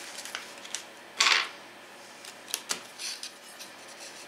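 Handling of small hardware: a small plastic bag of screws and hex keys rustling, with scattered light clicks of the metal parts. The loudest is a short crinkle of the bag a little over a second in.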